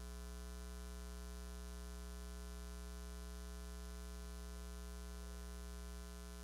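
Steady electrical mains hum, a low buzz with a stack of even overtones, dropping slightly in level near the end.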